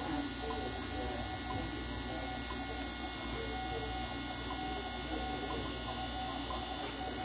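Morse code (CW) tone from a shortwave radio receiver, a steady mid-pitched note keyed on and off in dots and dashes, over a constant electrical hum and receiver hiss.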